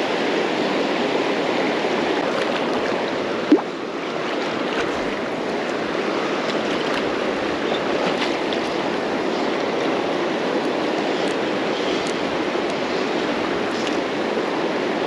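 Fast river water rushing over rocks in a steady, even rush, with one brief knock about three and a half seconds in.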